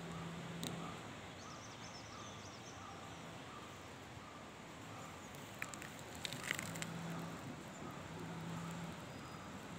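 Faint outdoor ambience: a low hum that comes and goes under soft, repeated short high notes, with a brief cluster of clicks and crackles about six seconds in.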